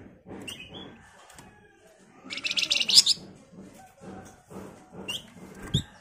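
A caged flamboyan songbird giving a rapid, high chattering burst about two seconds in, with a few short high chirps before and after. Under the calls is a repeated rustling from the bird moving about the cage, and a thump near the end.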